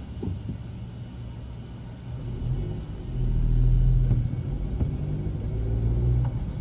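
Low rumble of a car heard from inside its cabin while it moves in slow traffic, growing louder about three seconds in.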